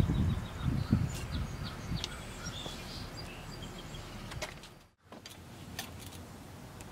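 Small birds chirping in short high calls over steady outdoor background noise, with low rustling and knocks from hands working at the bench in the first second or so. The sound drops out briefly about five seconds in, then a few faint clicks.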